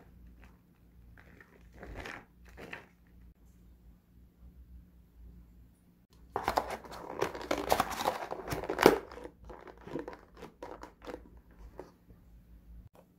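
Thin clear plastic lid fitted onto a black plastic ready-meal tray. A few light taps come first, then about three seconds of crinkling and clattering plastic, ending in one sharp snap as the lid seats, with small clicks after it.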